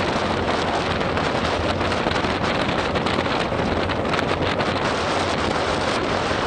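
Steady wind rushing over the microphone of a bicycle-mounted camera during a fast descent, mixed with the hiss of tyres on a rain-soaked road, with scattered faint ticks.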